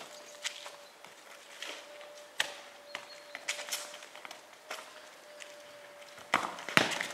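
Irregular sharp taps and scuffs of shoes on paving, about a dozen, with two louder knocks near the end, over a faint steady hum.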